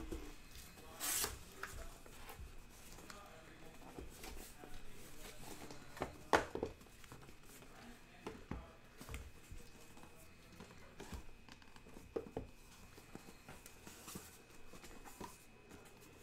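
Cardboard scraping and rubbing as sealed trading-card boxes are slid out of a cardboard shipping case, with scattered knocks as they are handled and set down. The loudest scrapes come about a second in and about six seconds in.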